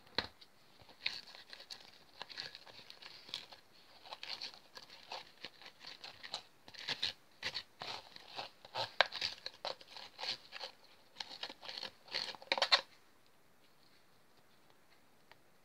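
Sticky black glue slime being kneaded by hand and scraped off a plastic bowl: a dense run of small sticky clicks and crackles that stops about three-quarters of the way through.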